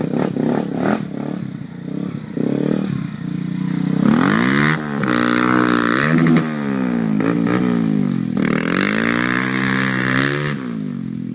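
Yamaha Raptor 350 ATV's single-cylinder four-stroke engine revving, its pitch falling and rising several times as the rider works the throttle. Clattering knocks come in the first few seconds.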